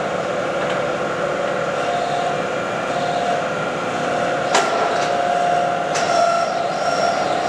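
Lodge & Shipley heavy-duty engine lathe running under power, its spindle and headstock gearing turning with a steady whine. Two sharp clicks or knocks, one about halfway through and one later.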